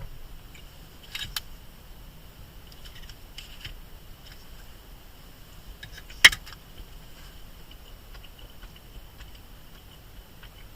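Light clicks and taps of small objects being handled, with one sharp, louder click about six seconds in, over a faint steady high hum.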